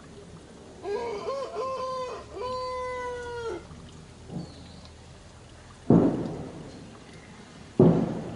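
A baby macaque crying: a few short, wavering high cries followed by one longer held cry, about three seconds in all. Later come two sudden loud thumps about two seconds apart, each fading out over a second.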